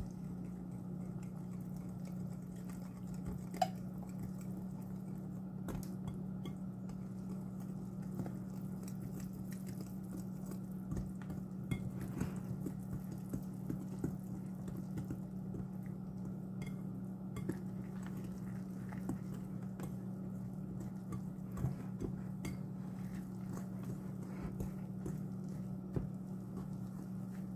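Wire whisk stirring a thick flour-and-egg batter in a glass bowl, with many light, irregular clicks of the wires against the glass. A steady low hum runs underneath.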